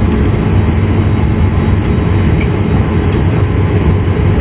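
Steady, loud low rumble inside an airliner's cabin on the ground just after landing, from the engines and the wheels running on the runway.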